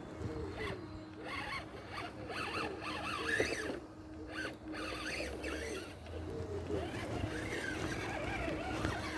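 FTX Outback RC crawler's electric motor and drivetrain whining, the pitch rising and falling over and over as the throttle is worked.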